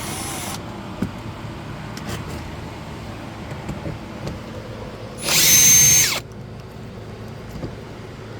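Power drill-driver whirring briefly at the start, then a louder burst of about a second near the middle with a steady motor whine, backing out the screws that hold a door liner, with small ticks and knocks in between.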